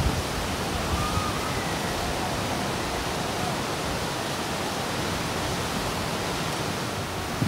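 Whitewater rapids of a large, fast river rushing in a steady, even noise without a break.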